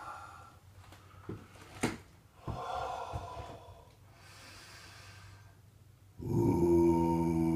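A man's deep breathing during mantra meditation: a few short, sharp breaths in the first few seconds, then slower, fainter breathing. About six seconds in, his low chanted mantra tone starts again, held on one steady note.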